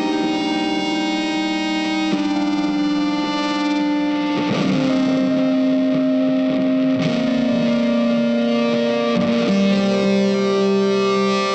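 Background music: a guitar with a distorted, effects-laden tone holding long notes that change about every two and a half seconds.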